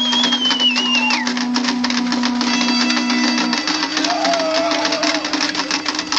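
A marching mob making noise: rapid, continuous clattering and banging of handheld objects over a steady low drone of plastic horns. A whistle falls in pitch about the first second, and a wavering higher tone sounds about two-thirds through.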